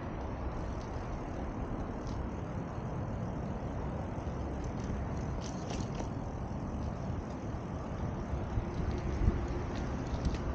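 Steady low rumble of road traffic: a motor vehicle's engine and tyres on the street.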